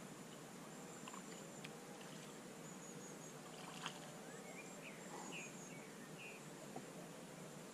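Faint, quiet outdoor ambience with a steady hiss, a few light clicks and knocks, one sharper click about four seconds in, and a few short high chirps shortly after.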